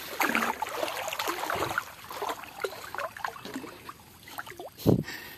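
Water splashing and running off a fine-mesh lift net as it is hauled up out of shallow muddy water, busiest in the first two seconds and then thinning to scattered drips and trickles. One louder thump comes near the end.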